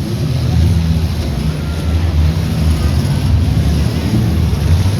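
Several demolition derby cars' engines running and revving together in the arena, a loud, steady low rumble.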